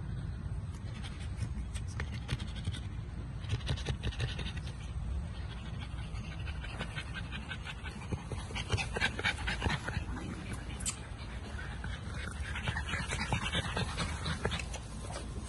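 American Bully puppy panting, in several runs of quick breaths.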